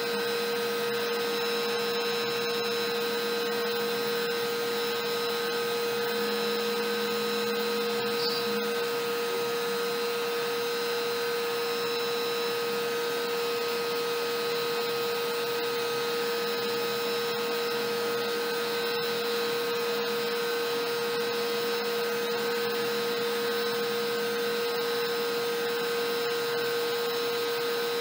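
Compact router on a LowRider v3 CNC, running a single-flute upcut bit at the router's lowest speed, slotting 12.5 mm deep through MDF at 22 mm/s and then taking a light 0.4 mm finishing pass, with the dust-collection vacuum running on the hose. A steady whine and hiss with no breaks.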